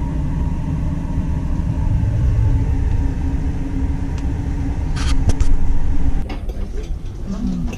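Steady low rumble of a ship's engines and machinery heard from inside the vessel, with a steady hum over it that stops about six seconds in. A few short clicks near the five-second mark.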